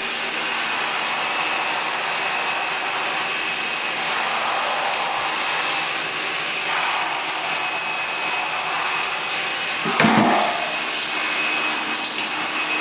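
Shower head running: a steady hiss of water spraying into a bathtub, with a faint high tone under it. A short, louder sound breaks in about ten seconds in.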